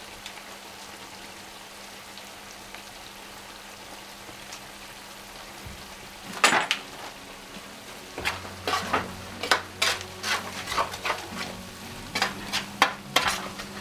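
Food frying with a steady sizzle in a wide steel pan over a gas burner. A single metal clink comes about six and a half seconds in. From about eight seconds a metal ladle scrapes and knocks against the pan several times a second as the mixture is stirred.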